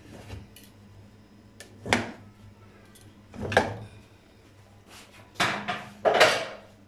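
Aluminium pressure cooker lid being unlocked and lifted off after the steam has been released: a few separate metal clunks and knocks, the loudest near the end.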